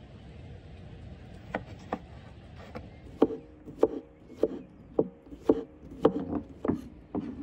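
Kitchen knife chopping a peeled cucumber on a wooden cutting board. Two light knocks come first, then from about three seconds in a steady run of about eight chops, a little under two a second, each with a short ring from the board.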